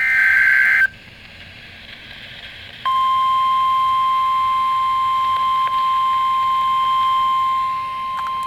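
Weather-radio alert: the last of a short shrill two-pitch digital data burst, a pause of about two seconds, then the steady single-pitch NOAA Weather Radio warning alarm tone starting about three seconds in and holding, signalling that a tornado warning follows.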